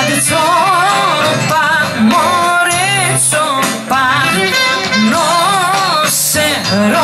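Live traditional Greek folk band music: a heavily ornamented, wavering lead melody over a steady accompaniment.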